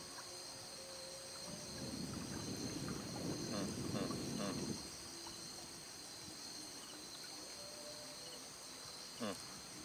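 Steady high-pitched chorus of insects chirring from the riverbank, with a fine pulsing texture. A louder low murmur swells between about two and five seconds in.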